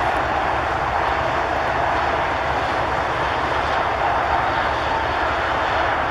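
Aircraft engines running steadily: an even rushing noise with a faint, steady whine.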